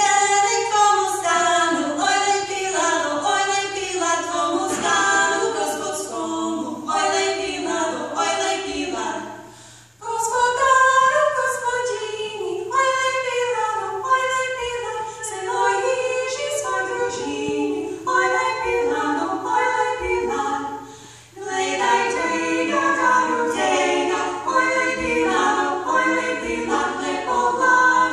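Eastern European vocal trio of women singing a cappella in harmony, in phrases, with short breaks about ten and twenty-one seconds in.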